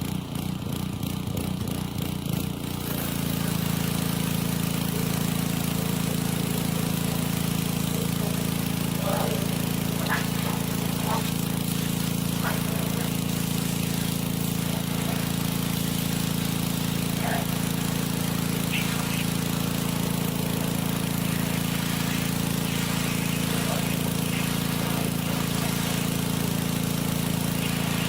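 Pressure washer's small gasoline engine running: rough and uneven for the first three seconds, then settling into a steady, even drone that holds.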